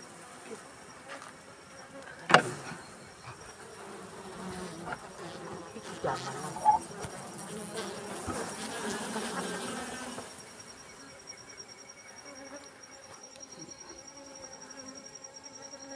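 Honeybees buzzing around the hive, a low steady hum, with one sharp knock a couple of seconds in and a thin high whine joining from about two-thirds of the way through.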